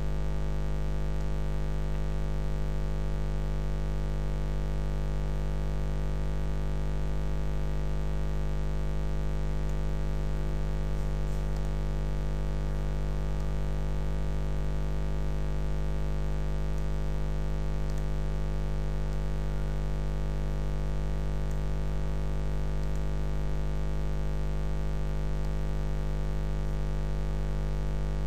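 Steady electrical mains hum and buzz: a low drone with many evenly spaced overtones that does not change.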